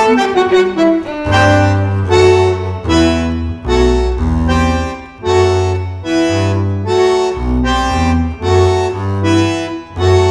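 Tango trio music led by a bandoneon playing short, detached chords in a steady rhythm, roughly two a second, with double bass notes underneath.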